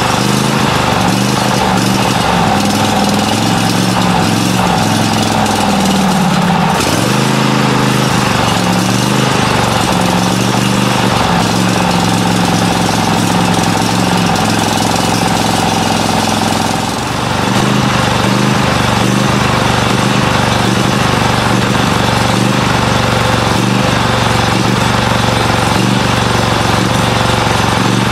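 Great Dane Super Surfer stand-on commercial mower's engine running unevenly, its speed sagging and picking back up about a quarter of the way in and again about two-thirds through. It is running on its own fuel again after the fuel pump and line were cleared with carburetor cleaner, but running poorly and in need of a tune-up.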